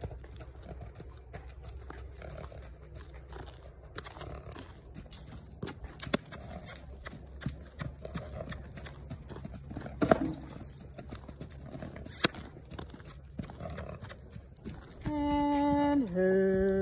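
Hoofbeats of a young horse trotting and cantering loose on a dirt pen, a soft uneven patter with a few sharper knocks. Near the end a loud, long, steady voice-like call comes in two held parts, the second lower in pitch.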